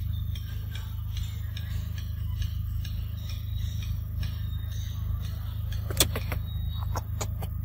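A macaque eating a mango close to the microphone: faint ticks and scrapes, with one sharp click about six seconds in and a few more about a second later, over a steady low rumble.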